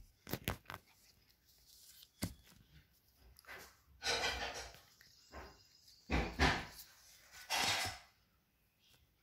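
Stack of Pokémon trading cards being handled by hand: a few sharp snaps and clicks of the cards, then three short rustling swishes as the cards slide against each other and are fanned out.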